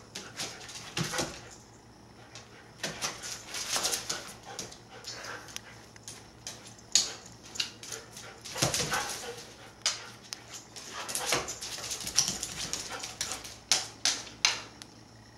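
A Siberian husky's claws and paws clicking, scrabbling and thumping on a hardwood floor as it pounces and spins, in irregular runs of sharp taps with louder thumps now and then.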